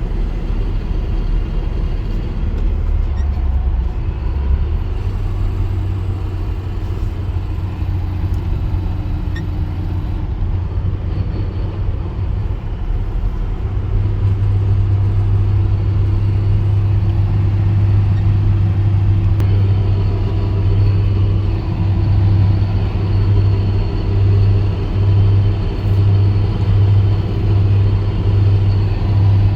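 1998 Nissan Frontier pickup driving in gear, engine and road rumble with a faint whine from the 5-speed manual transmission: gear noise under load, from a gearbox that is noisy in every gear except fourth. It gets louder about halfway through, and near the end the level swells and dips about once a second.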